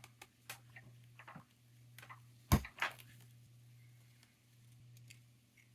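Small clicks and taps of a case opener tool working at the clip-in back of a wristwatch case, with one sharp, loud click about two and a half seconds in as the back snaps free.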